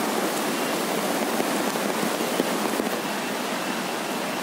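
Steady rushing noise of the flooded Aghanashini river running fast and hard, with rain falling; a little quieter from about three seconds in.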